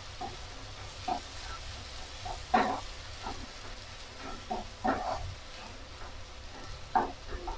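Spatula stirring and scraping scrambled egg and onion-tomato masala around a coated kadai, with a light sizzle underneath; about five short scrapes stand out.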